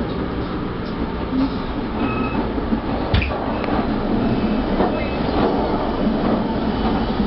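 Passenger train's ride noise heard from aboard: a steady rumble and rattle of the wheels running on the rails, with one sharp knock about three seconds in.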